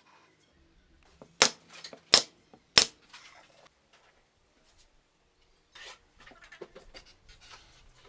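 Three sharp, loud cracks about two-thirds of a second apart while a small pine bird-feeder house is being assembled, followed by quieter knocking and rustling as the wooden pieces are handled on the workbench.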